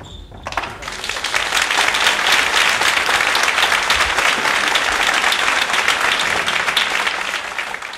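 Audience applauding: clapping breaks out about half a second in, swells quickly, holds steady, and begins to fade near the end.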